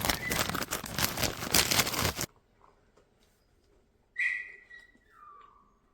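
Plastic packaging crinkling loudly for about two seconds, cut off suddenly. Later, a single whistle-like tone that starts high and slides down in pitch over about a second.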